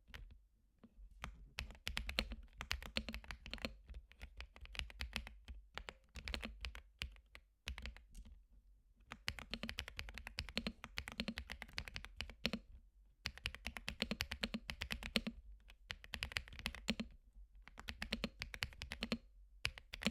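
Typing on a creamy-sounding mechanical keyboard: quick runs of key presses, each a soft click, in bursts broken by brief pauses.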